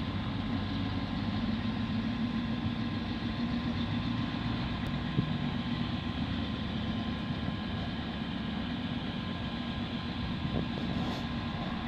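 Honda ATV engine running steadily at low speed, with a single short click about five seconds in.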